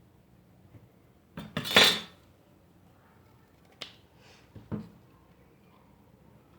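Cardboard being worked by hand: a short crunchy rustle with a few quick strokes about one and a half seconds in, then two light clicks of handling on the bench.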